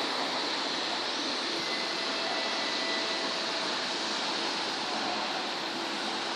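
Steady rushing ambience of a seaside city heard from high up: distant traffic and sea surf blended into one even wash of noise, with a faint thin whine for a couple of seconds in the middle.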